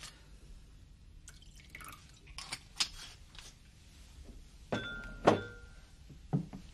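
Glass clinking against glass and liquid being poured as a drink is poured into a glass. Scattered light clinks and knocks, the loudest about five seconds in with a brief ring.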